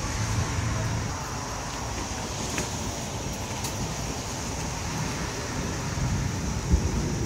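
Steady noise of a rainstorm: a wash of rain with a low rumble underneath and a few faint ticks.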